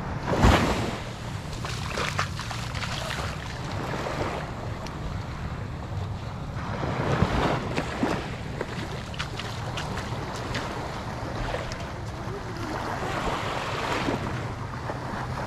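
Sea surf washing onto a beach, with wind buffeting the microphone; a brief louder burst of wind noise about half a second in.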